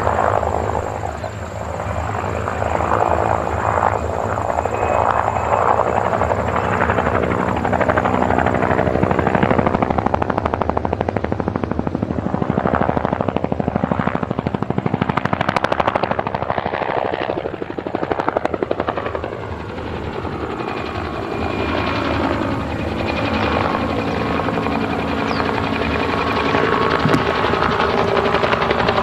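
Helicopter sound effect: rotor blades chopping in a fast, steady beat over engine noise, swelling and easing in slow waves, with a brief dip a little past the middle.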